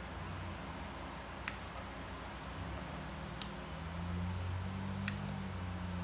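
Hot-staple plastic welder humming low as a staple heats up and is pressed into the plastic, the hum swelling and easing, with three light clicks spread through it.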